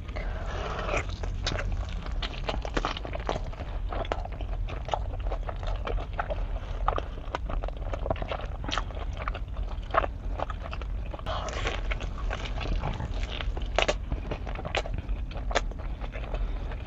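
Close-miked eating: bites and crunchy chewing, with many short crisp crackles. The crunching comes in denser bursts about half a second in and again around eleven to thirteen seconds, over a steady low hum.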